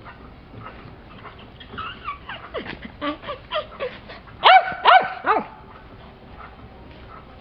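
Small Yorkshire terrier yipping and whining in a quick run of short calls, then giving three loud, high-pitched barks about halfway through.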